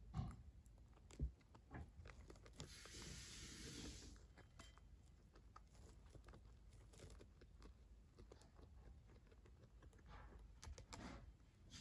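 A guinea pig chewing pellets from a stainless steel bowl: faint crunching with many small clicks, and a soft rustle lasting about a second around three seconds in.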